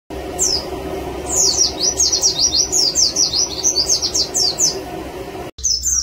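Caged white-eye (pleci) singing: a rapid run of high, thin chirps, each sliding downward, over a steady low hum. The song breaks off abruptly about five and a half seconds in, then resumes.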